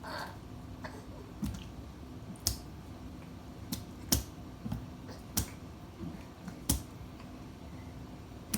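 A baby's hands slapping and patting water on an open dishwasher door: a series of sharp, wet slaps at an irregular pace, about eight of them, the loudest about four seconds in.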